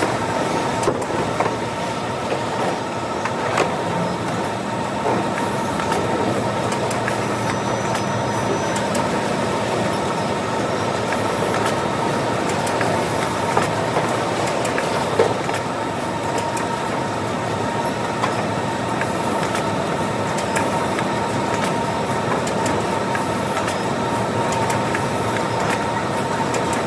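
Steady machinery din of a warehouse packing line: conveyor belts and an automatic bag-sealing packing machine running, with a constant hum over the noise. A few short, sharp knocks stand out now and then.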